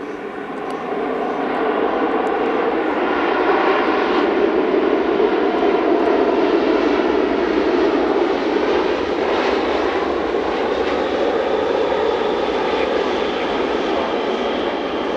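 Airbus A380-861's four Engine Alliance GP7200 turbofans running loud as the airliner rolls out on the runway after touchdown. The noise grows over the first two seconds, then holds steady.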